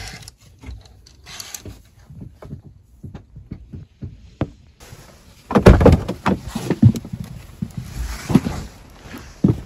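A door being handled: scattered clicks and knocks, then a run of louder thumps and bangs from about halfway through.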